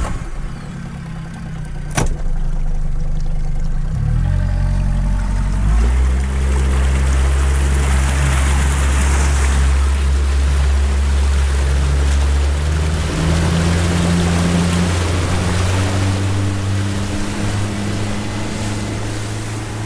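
A 60 hp Yamaha outboard on a small fishing boat opens up about four to six seconds in, then runs steadily under way, with water and wind rushing past the hull. The engine note steps up a little about halfway through.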